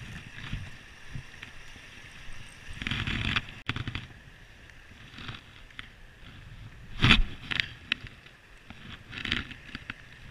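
Irregular scrapes, rustles and knocks from the angler handling the rod and a hooked trout as it is brought in. There is a half-second burst about three seconds in and a sharper, louder one about seven seconds in.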